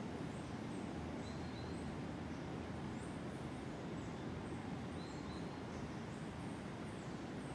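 Tropical forest ambience: a steady low rushing noise under short, high bird chirps that repeat every half second or so, with a few lower chirps among them.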